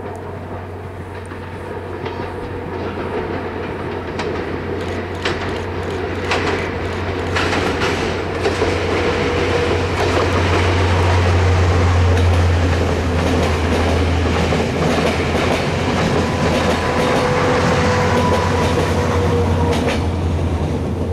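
Diesel train passing at close range: a low engine drone that grows louder to a peak about halfway through and holds, with the wheels clicking over rail joints as the train comes by.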